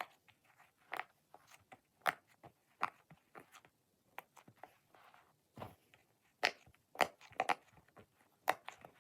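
Scattered, irregular soft clicks and crinkles of close handling noise, a few sharper ones near the middle and end.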